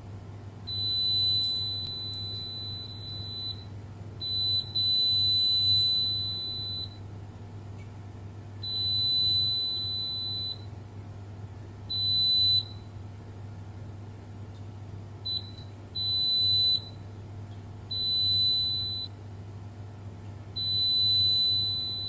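KAIWEETS KM601 digital multimeter's continuity beeper sounding a steady high tone about eight times, each beep lasting from a blip to about three seconds, as the probes touch points on the control board. The beeping marks low resistance between the probed points, a sign of something wrong on the microcontroller's VCC circuit.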